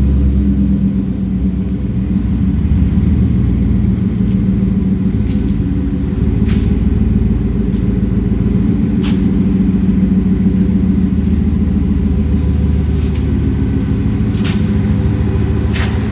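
Supercharged 5.0 V8 of a Ford F-150 Lightning tribute truck, fitted with an MBRP exhaust, running steadily with a low exhaust rumble and no hard revving.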